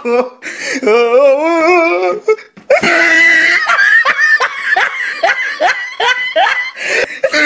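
Loud human laughter: a long wavering note, then from about three seconds in a fast run of repeated laughs.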